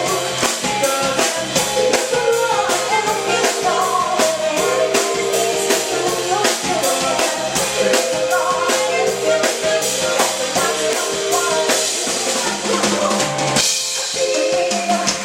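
Live band playing an upbeat pop song: drum kit keeping a steady beat under bass and keyboard. The bass drops out briefly near the end, then the full band comes back in.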